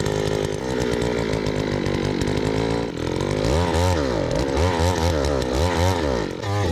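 Gas-powered post hole auger's small engine running hard while boring into the ground, its speed swinging up and down about four times in the second half.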